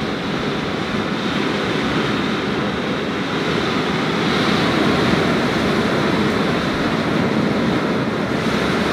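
Heavy rain pouring onto a tin roof, a loud, steady hiss that does not let up.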